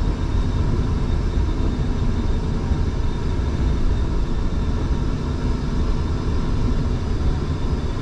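Scania prime mover cruising at highway speed, heard inside the cab: a steady drone of engine and tyre noise at an even level.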